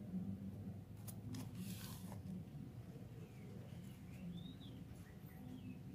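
Plastic fish bags rustling in short bursts between about one and two seconds in as they are handled and set into a tub of water, with faint high bird chirps throughout.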